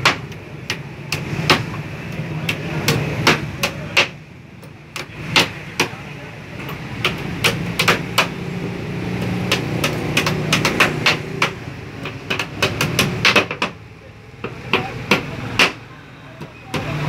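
Two hammers driving nails into the pallet-wood planks of a tabletop. The sharp strikes come in quick, irregular runs, the two hammers often overlapping.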